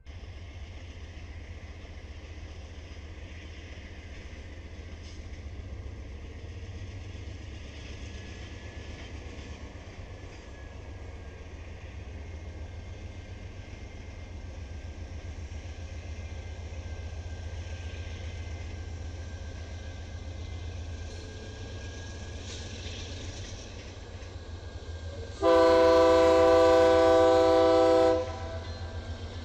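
Diesel locomotives running with a steady low rumble, and near the end one long locomotive horn blast of about two and a half seconds, sounding several notes at once and much louder than the rumble.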